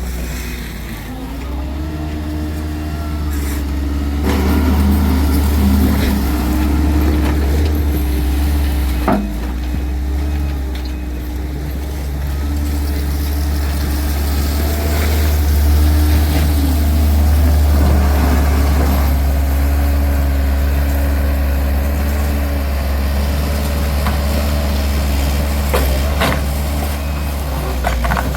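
Heavy truck's diesel engine running steadily, its pitch shifting now and then, with a few sharp clanks of debris-clearing work.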